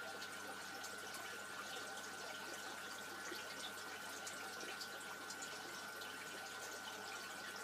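Aquarium water circulating through the tank's filter, trickling and splashing steadily with fine droplet patter, over a steady high tone.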